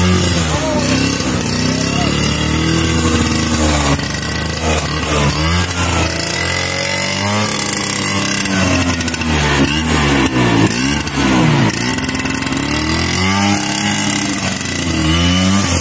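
Classic Vespa scooter's two-stroke engine revving up and down over and over as the scooter is pushed up a muddy slope.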